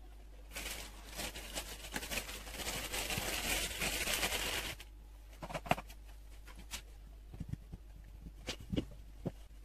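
Hand work at a kitchen counter: about four seconds of dense rustling and scraping, then scattered light taps and knocks as the hands move over a silicone baking mat.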